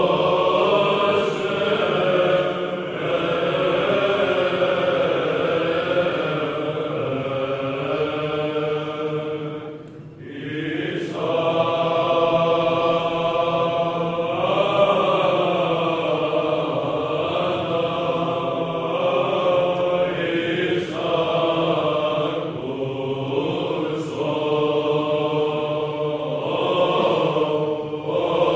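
A choir chanting in long, slow, sustained phrases, breaking briefly about ten seconds in and again around twenty-one seconds.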